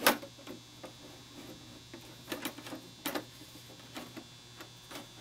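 Plastic parts of a 1/6 scale Hot Toys Tumbler model clicking and tapping as its top panel is worked loose by hand. A sharp click comes right at the start, then a few softer clicks and taps about two and three seconds in.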